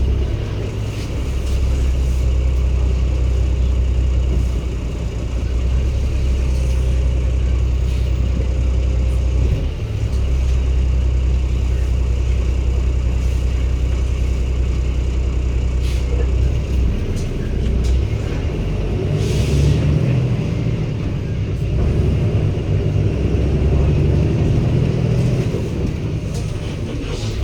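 Daewoo BS090 city bus's Cummins ISB six-cylinder diesel engine running under way, heard from inside the bus with the air conditioning off. For the first half it holds a steady low drone, dipping briefly about ten seconds in. In the second half the engine note rises and falls, with a short hiss partway through.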